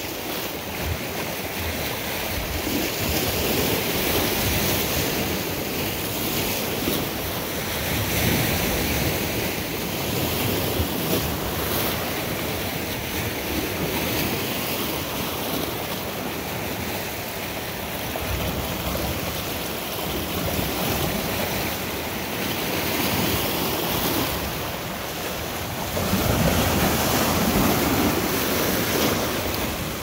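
Sea waves breaking and washing over a rocky, cobbled shore: a continuous rush of surf that rises and falls with each wave.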